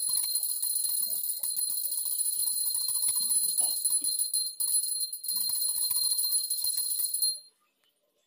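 A steady, shrill high-pitched drone of several pitches with a hiss, which cuts off suddenly about seven seconds in. Faint small clicks and taps sound beneath it.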